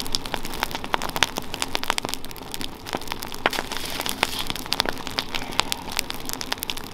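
Large open log bonfire crackling, with many irregular sharp pops and snaps from the burning wood.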